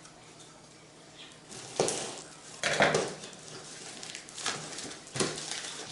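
A mailed package being handled and opened: a few short, sharp rustles and knocks, the loudest at about two and three seconds in.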